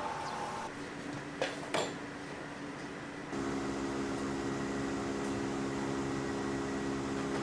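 Steady electrical machine hum of kitchen equipment that steps up louder about three seconds in, with two light clicks a second and a half in.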